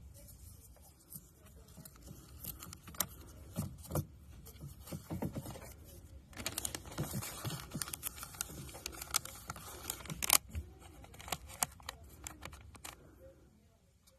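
Clicks, taps and rustling as the printer paper roll of an Interacoustics AT235 impedance audiometer is handled and changed, with a denser stretch of scraping and rustling for about four seconds in the middle and a sharp click just after it.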